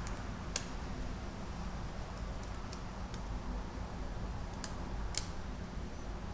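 A few sharp, light metallic clicks of a piston ring being worked by hand into the top groove of a motorcycle piston, spaced irregularly over a low steady hum.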